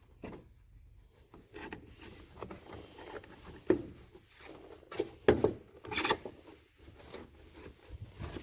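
Air filter element being pulled out of the plastic airbox of a 2008 Chevy Avalanche: irregular rubbing and scraping of the filter against the housing, with a few light knocks about halfway through.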